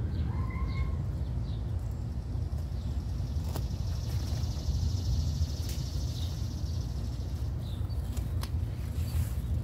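A few sharp snips of hand pruners cutting back zucchini leaves, over a steady low rumble. A few faint chirps come near the start, and a high hiss lasts several seconds in the middle.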